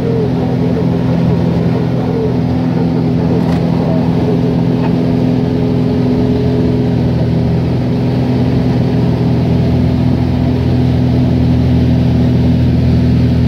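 High-wing light aircraft's engine and propeller running at a steady, even drone, heard from inside the cabin in flight.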